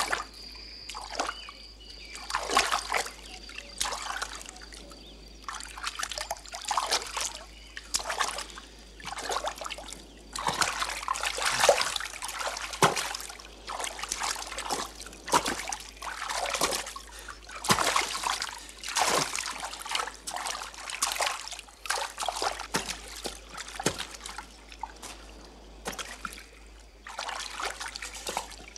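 Water splashing in irregular bursts about once a second as a man thrashes about in a river.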